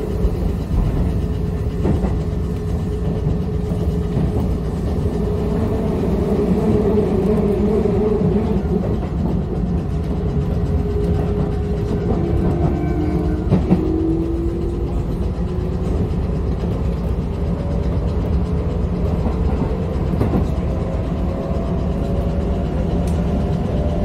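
Keisei electric commuter train running, heard from inside the car at the front: a steady rumble of wheels on the track, with the motors' whine rising in pitch near the end as the train picks up speed.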